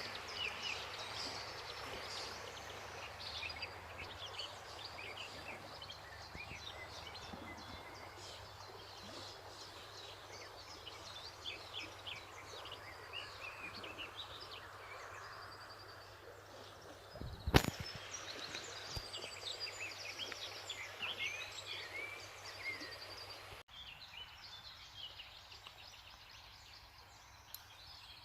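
Many small birds chirping and trilling over the steady rush of stream water. A single sharp knock comes about two-thirds of the way through. The water noise drops off suddenly near the end.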